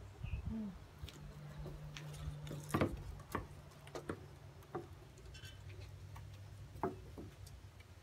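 Painted turtle's claws clicking irregularly on wooden deck boards as it walks, a sharp tap every half second to a second, over a low steady hum that stops after about six seconds.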